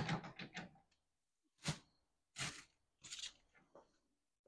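A few brief, faint knocks and rustles of kitchen items being handled and set down: a quick cluster at the start, then three short separate sounds spread through the rest.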